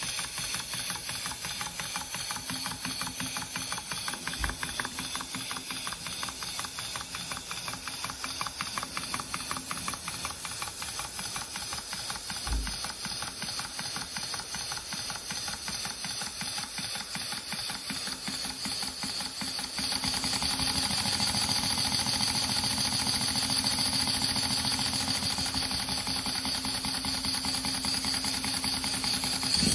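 Stuart Score model twin-cylinder steam engine running on compressed air: a rapid, even exhaust beat over a steady hiss of air. About two-thirds of the way in it becomes louder and hissier. Two short low thumps come through early on and midway.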